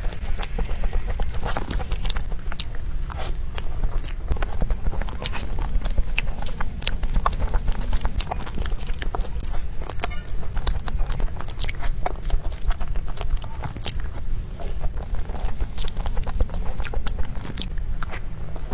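Close-up mouth sounds of eating a soft crepe towel roll cake: irregular wet biting, chewing and smacking clicks.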